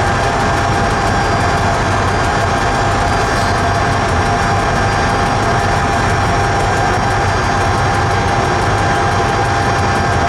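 A train running through a long railway tunnel: a steady, loud rumble of the running train, with a couple of steady whining tones on top.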